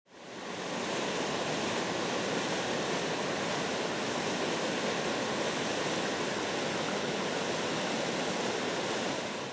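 Rushing river water, a steady full roar of rapids that fades in over the first second and fades out near the end.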